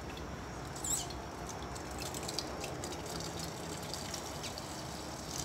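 Cooked fruit broth being strained through a small kitchen sieve: liquid trickling and pouring, with light clicks of utensils against the sieve and one louder clink about a second in.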